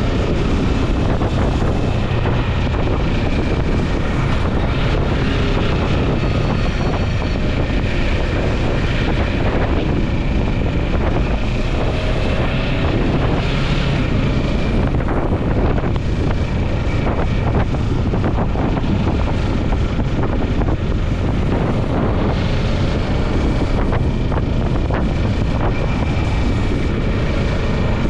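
Kawasaki Ninja 650's parallel-twin engine running steadily while riding at moderate speed, mixed with wind noise on the microphone.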